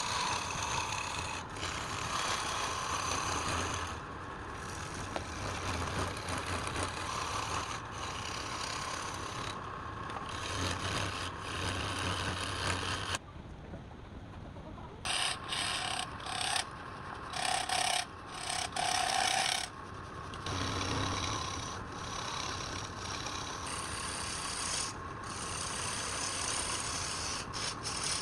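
Wood being worked on a running lathe: a steady rubbing, rasping contact over the machine's motor hum. The contact breaks off for a couple of seconds around the middle, then returns in short touches before running steadily again.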